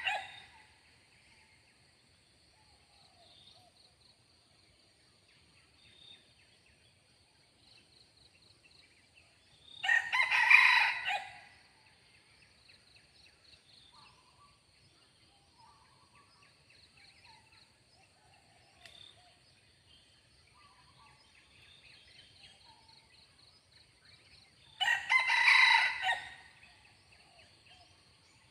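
Red junglefowl cock crowing twice, each crow about two seconds long and some fifteen seconds apart, over a steady high-pitched insect drone and a few faint bird chirps.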